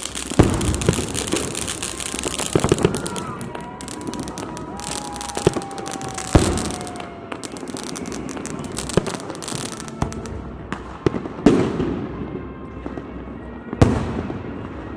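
Fireworks display: repeated sharp bangs of aerial shells bursting, with crackling between them and a long, slowly falling whistle-like tone in the middle. The loudest bangs come just after the start, around the middle and near the end.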